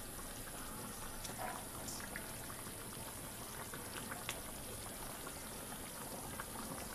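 Duck and potato curry boiling in a pan of watery gravy: a steady, soft bubbling with scattered small pops.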